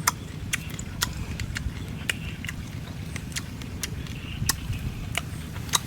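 Raw crab shell crunching between the teeth, as irregular sharp cracks, over a low steady rumble of wind on the microphone.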